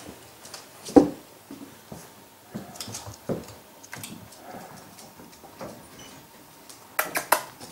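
English Springer Spaniel puppy playing on a hard floor: scattered light taps and scuffles, with a sharp knock about a second in and two quick sharp clacks near the end.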